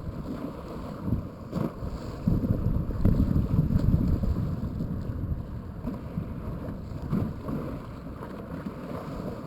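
Wind buffeting the microphone, a gusting low rumble that swells in the middle and eases toward the end, with a faint click about one and a half seconds in.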